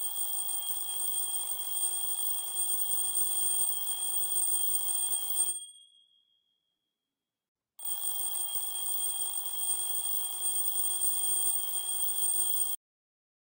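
Smartphone alarm ringing with a steady high-pitched tone, in two stretches of about five seconds each: the first fades away, the second cuts off abruptly.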